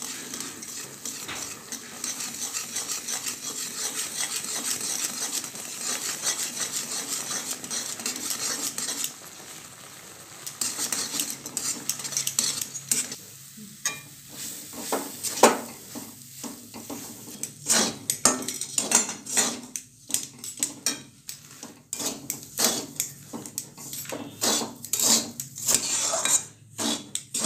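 Metal spatula stirring semolina in a metal wok of hot oil, roasting it for upma. For the first several seconds the oil sizzles under steady stirring; from about ten seconds in the sizzle falls away and the spatula gives repeated sharp scrapes and clinks against the pan.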